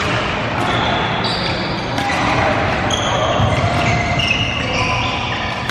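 Badminton doubles rally on an indoor court: shoes squeaking on the court floor again and again, a few sharp pops of rackets hitting the shuttlecock, and chatter from players on other courts.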